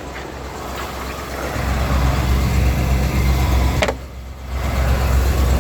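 A 1991 Ford E350's 5.8-litre V8 running with a steady low rumble that grows louder about a second and a half in. A short sharp squeak comes near the middle, followed by a brief drop in the rumble before it picks up again.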